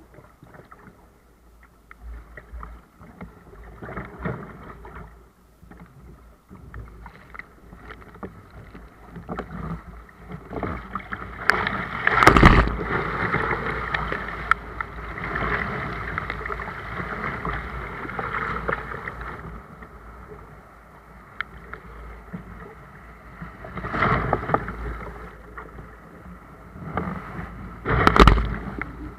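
Sea kayak paddling through surf: water sloshing and splashing against the hull with the paddle strokes. A longer stretch of rushing whitewater follows as the kayak rides a breaking wave, with loud splashes about twelve seconds in, and twice near the end.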